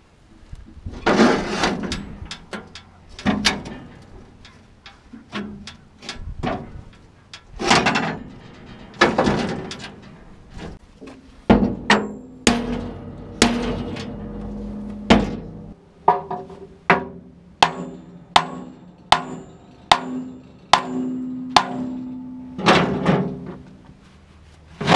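Hammer blows on the steel plunger and bar in a Massey-Ferguson No. 12 baler's bale chamber, driving the plunger back into place. The strikes are irregular, about one a second, some with a short metallic ring, and a few are longer scraping hits.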